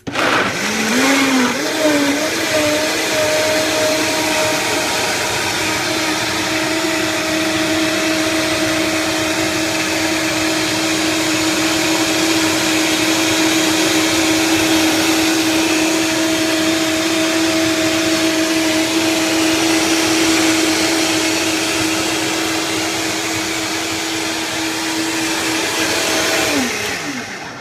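Countertop blender running on a jar of liquid and leafy greens, loud. Its motor pitch wavers and climbs over the first couple of seconds as the blades catch the load, then holds a steady whine while it purées the greens, and winds down near the end.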